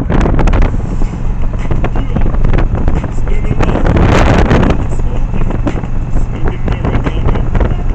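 Motorcycle engine running while riding, under heavy wind buffeting on the microphone, with a louder rush of wind noise about four seconds in.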